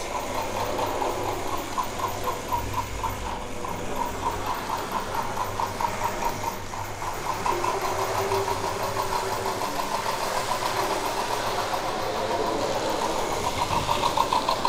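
Hornby R150 B12 model steam locomotive running on its track. Its small electric motor whirs, and its built-in chuffing feature makes a quick, even rhythm of chuffs.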